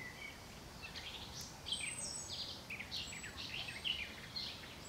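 Wild songbirds singing: a stream of short high chirps and quick falling notes, busiest from about a second and a half in, with a thin high whistle now and then, over a faint steady hiss of outdoor background.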